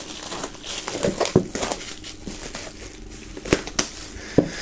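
Clear plastic shrink-wrap film crinkling and crackling as it is peeled and pulled off a cardboard box, in irregular rustles with a few sharper crackles.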